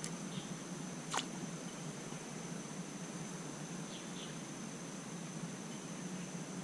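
Outdoor ambience with a steady, high insect drone, a few faint short chirps, and a single sharp click about a second in.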